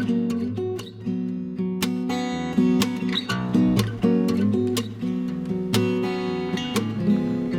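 Background music: strummed acoustic guitar playing chords at a steady pace.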